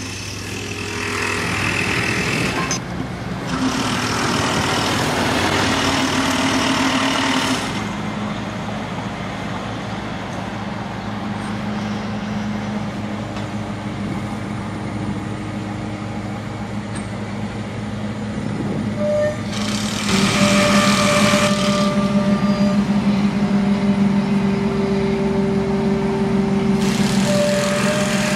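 Large crawler crane's diesel engine running with a steady low hum, swelling into louder stretches with a hiss four times: twice in the first eight seconds, once about twenty seconds in, and again near the end.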